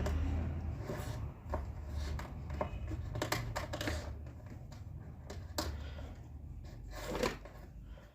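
Handling noises: scattered light clicks and rustles of things being moved about by hand, over a steady low rumble.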